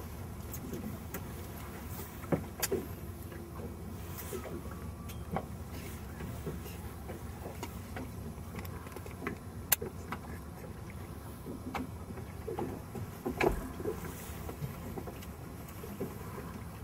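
Steady low hum of a fishing boat's engine, with scattered sharp clicks and knocks from tackle being handled on deck.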